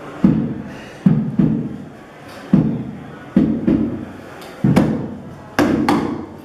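Rhythmic thumping on wooden boxes and crates, kept as a beat: a heavy thump about every second, some followed quickly by a second one, each dying away briefly. A few of the later beats carry a sharp click.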